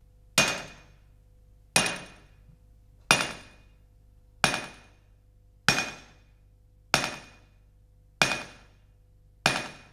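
A hammer striking eight times at an even, slow pace, about one blow every 1.3 seconds. Each blow rings briefly before dying away, over a faint steady hum.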